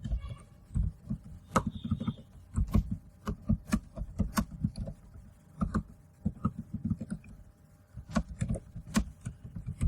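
Computer keyboard being typed on: quick, irregular key clicks and thumps in short runs, with brief pauses between them.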